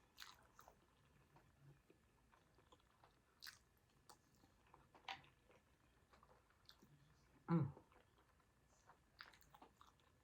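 Faint close-miked chewing and mouth sounds of someone eating tuna casserole: scattered soft smacks and clicks. A short hummed "mm" comes about seven and a half seconds in.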